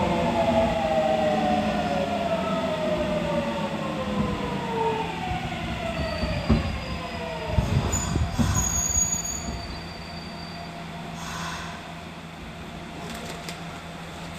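Toshiba GTO-VVVF inverter of a Nagoya subway 6000 series car whining in several tones that fall together in pitch as the train brakes into a station, heard from inside the car. Thin high squeals come in about six to nine seconds in, and after about ten seconds the car runs quieter.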